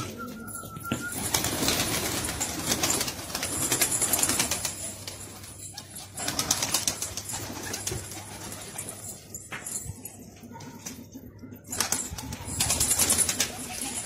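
Gulgasht pigeons flapping their wings and shuffling about while feeding, in several bursts of flapping with quieter gaps between.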